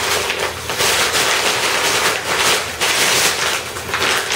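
Gray plastic mailer bag crinkling and rustling as it is pulled open and handled, a loud dense crackle that surges and eases unevenly.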